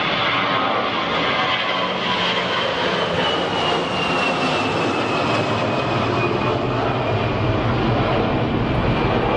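Aircraft engine running loudly and steadily, with a thin high whine that rises slightly at first and then slowly falls. A deeper rumble grows stronger over the second half.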